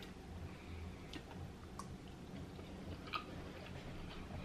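Quiet chewing of king crab meat with the mouth closed, a few soft wet mouth clicks now and then.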